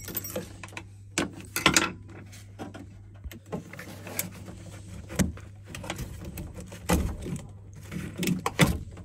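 Irregular metallic clicks and rattles of the pressure relief valve's retaining clip and brass fittings being worked loose by hand on a combi boiler, over a steady low hum.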